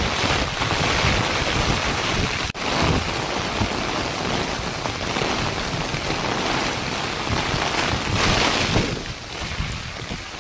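Torrential rain pouring down in a gale, with the wind buffeting the phone's microphone in a heavy low rumble. The sound drops out for an instant about two and a half seconds in. It swells in a strong gust near the end, then eases a little.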